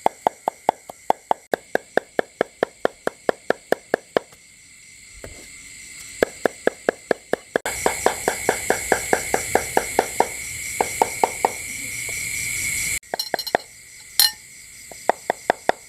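Meat cleaver mincing catfish flesh on a round wooden chopping block, a fast even run of chops at about five a second, with a short pause about four seconds in and again shortly before the end. Crickets chirr steadily behind it, louder for several seconds in the middle.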